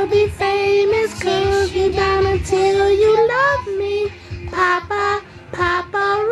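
A child singing a pop song close to the microphone, in short held notes of nearly the same pitch, with a rising note about three and a half seconds in.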